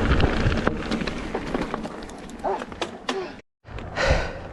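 Mountain bike rolling off the trail, with wind rushing over the camera microphone, then irregular clicks and rattles of the bike and tyres over loose ground. A few short squeaks come near the middle. The sound cuts out abruptly for a moment about three and a half seconds in.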